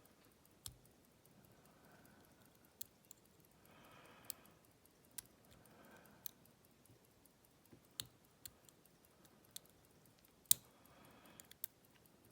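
Faint, scattered clicks and ticks of a lock pick working the spool pins inside a Scandinavian oval lock cylinder during a false set, about a dozen irregular clicks with the sharpest one near the end.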